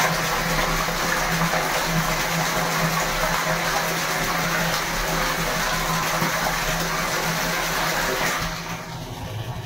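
Water pouring from the inlet pipe into a Sunplast plastic water tank as it fills, a steady splashing rush with a low hum under it; it eases off a little near the end.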